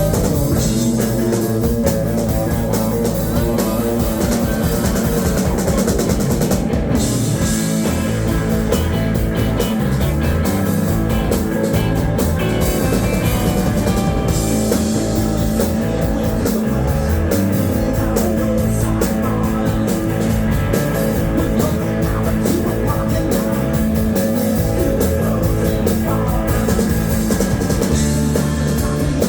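Rock band playing live and loud without vocals: drum kit and guitars in a dense, steady wall of sound, as heard from the audience in a music hall.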